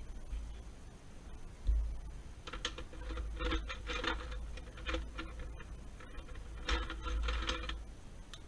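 Felt-tip markers clicking and rattling against one another in a metal tin as a hand rummages through them, for about five seconds, with a faint ringing tone under the rattle. A couple of dull thumps come from handling.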